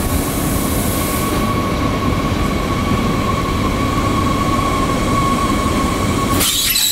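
SNCF B81500 bimode AGC railcar pulling slowly into the platform close by, a rumble of running gear with a steady high whine over it. About six and a half seconds in, the sound changes suddenly: the low rumble drops away and a hiss takes over.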